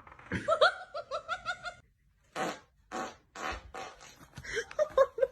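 A person laughing hard: a quick run of high-pitched 'ha' bursts, then a few breathy, wheezing laughs about half a second apart, then more giggling.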